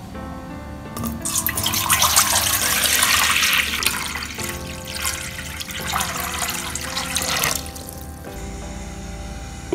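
A stream of water poured into an empty non-stick pot, splashing and filling it. The pour starts about a second in, is loudest soon after, and tails off about three-quarters of the way through.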